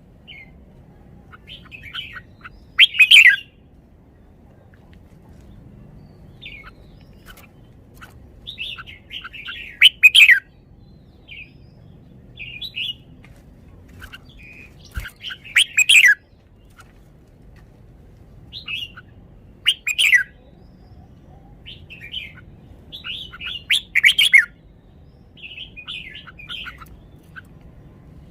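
Red-whiskered bulbul singing: short, bright phrases of a few whistled notes, repeated every few seconds, some loud and some softer.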